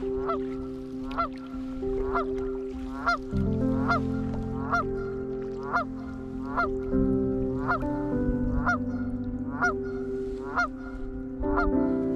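Geese honking, one call roughly every second, over background music with long held notes.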